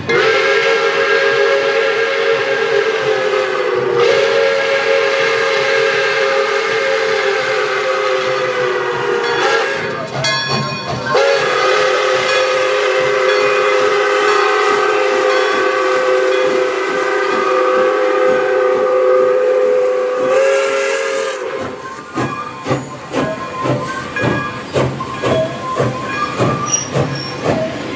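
Steam locomotive's chime whistle blowing three long blasts, several notes sounding together; the last ends about three-quarters of the way in with a rush of hissing steam. The locomotive's exhaust then chuffs at about one and a half beats a second.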